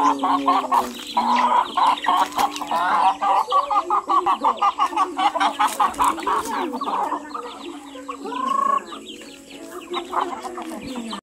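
A flock of chickens and roosters clucking in rapid, overlapping calls as they are fed. The calls thin out after about seven seconds, with one louder rising call about eight and a half seconds in.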